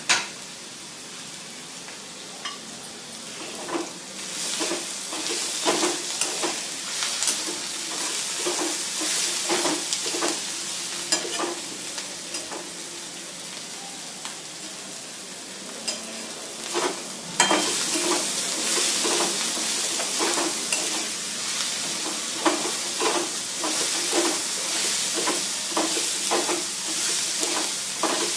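Ridge gourd bhaji frying and sizzling in a pan while a spatula stirs it, with frequent short scrapes and clicks against the pan. The sizzle grows louder about four seconds in and again a little past the middle.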